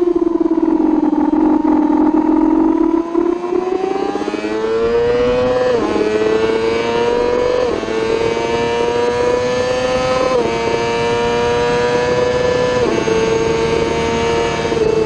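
Racing sportbike engine heard on board at speed, holding a steady pitch through a corner, then accelerating hard: the pitch climbs and drops back at four quick upshifts, about 6, 8, 10 and 13 seconds in.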